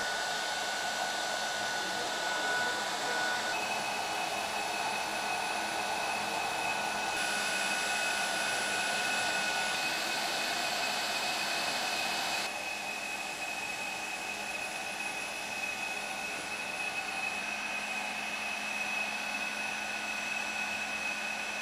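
Hydraulic pump of a JX F1650 RC truck crane running steadily with a whining hum while the boom is worked. A second, higher tone joins about four seconds in, and it runs a little quieter from about twelve seconds on.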